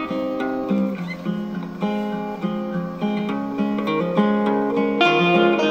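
Acoustic guitar music: a plucked melody of single notes and chords that change about every half second, at a steady level.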